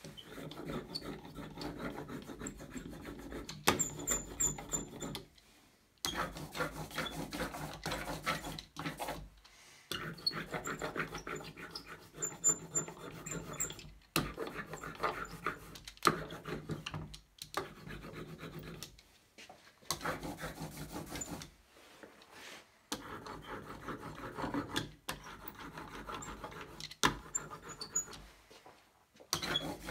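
Hand ink brayer rolling ink over a carved wooden relief block, in about six passes of a few seconds each with short breaks between them, with a fine crackle all through.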